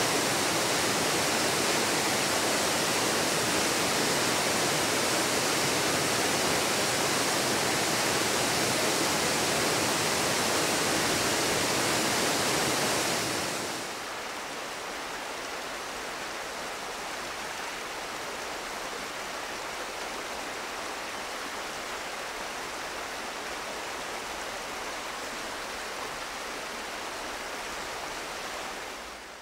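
Mountain river water rushing over rocks and boulders in a gorge, a steady noise. About 14 seconds in it drops suddenly to a quieter, more distant rush of water.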